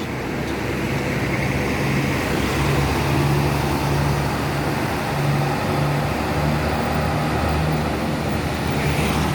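Tour bus diesel engine running low and steady as the bus pulls out, its low note swelling and fading.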